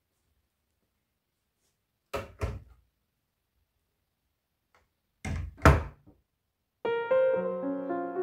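Wooden cupboard doors thudding shut, in two quick pairs of knocks, the second pair louder. Piano music starts near the end.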